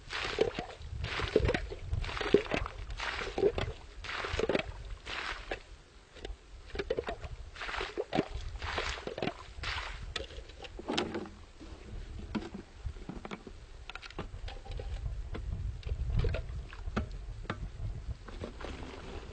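Water being scooped from a hole in lake ice, in repeated splashing strokes about once or twice a second that thin out after about ten seconds.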